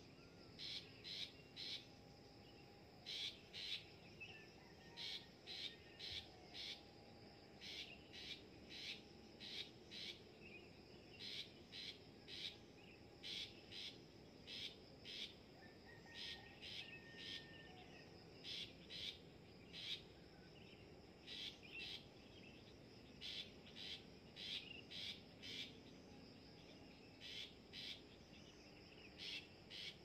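Long-tailed shrike (pentet) calls: short high notes in quick runs of two to four, repeated every second or two.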